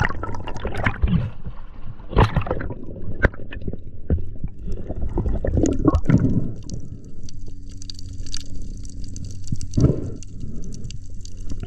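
Underwater sound on a diving camera: gurgling bubbles, water movement and irregular knocks and clicks, with a steady low hum joining in a little past the middle.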